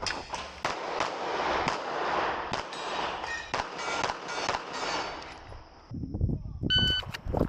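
9mm Glock 17 Gen 5 pistol firing rapid, irregular strings of shots through a competition stage. Near the end comes a short electronic beep, a shot timer's start signal, followed by more shots.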